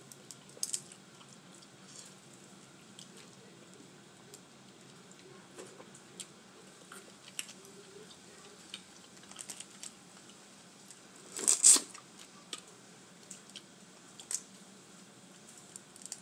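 Boiled crawfish being peeled and eaten up close: shells cracking and tearing, with wet squishing, in scattered small crackles. One louder burst comes about two-thirds of the way through.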